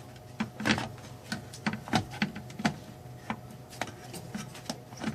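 Plastic casing of a Lipman Nurit 2085 card terminal being fitted back together: about a dozen irregular sharp clicks and knocks as the two halves are handled and pressed into place, over a faint steady hum.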